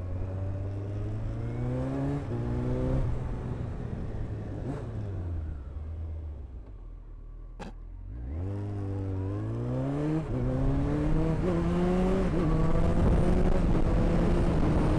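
Kawasaki ZX-14's inline-four engine pulling hard and changing up a gear, then easing off as the revs fall away. About 8 seconds in it accelerates hard again, changing up twice more, and holds high revs under rising wind noise.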